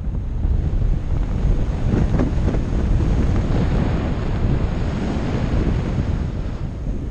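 Wind buffeting the microphone of a helmet-mounted GoPro during a parachute descent under an open canopy: a steady, heavy low rumble of air.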